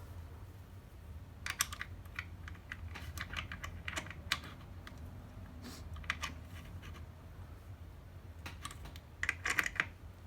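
Light metallic clicks and small scrapes, scattered with a few quick clusters, from the parts of a K98 Mauser bolt being handled and fitted back together with its new firing pin spring.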